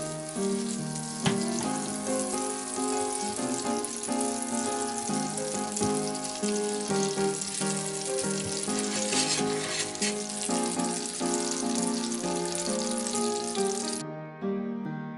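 Butter sizzling as it melts in a stainless steel pan, under background music. The sizzle cuts out about a second before the end, leaving only the music.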